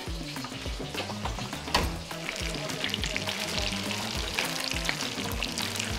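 Panko-breaded fish fillets frying in a pan of hot oil, a steady crackling sizzle, over background music with a steady beat.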